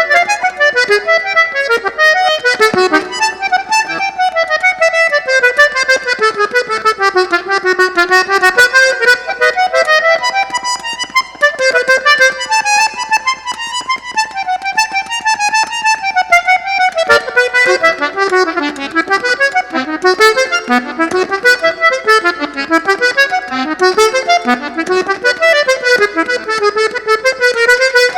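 Eight-bass button accordion (fole de oito baixos) playing traditional northeastern Brazilian music: quick melodic runs of short notes that climb and fall.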